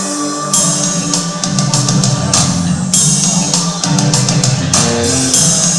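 Instrumental introduction of a song: held chords, then a drum kit and band come in about half a second in with a steady beat.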